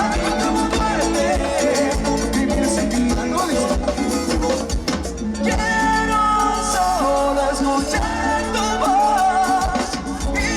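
Latin tropical dance band playing live, a full band sound with melody instruments over a steady beat, recorded from the audience.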